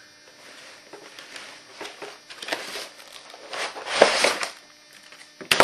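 Plastic shrink-wrap crinkling on a cardboard kit box as it is handled and turned over, with a louder crackle about four seconds in and a sharp knock near the end.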